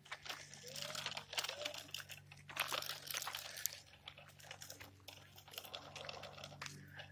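Footsteps crunching irregularly on a gritty, gravel-strewn road surface, over a faint steady low hum.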